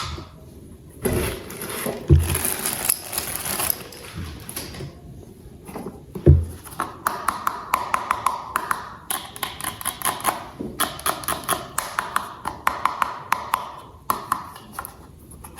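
Toy parts being handled during unboxing and assembly: rustling and scraping with a couple of knocks, then a long run of rapid sharp clicks for several seconds.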